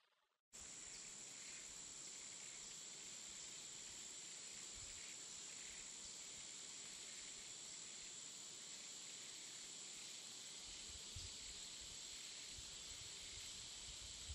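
Faint, steady outdoor ambience: an even high-pitched hiss with a thin high whine, starting about half a second in after a moment of silence. From about ten seconds in, light low rumbles of wind on the microphone come and go.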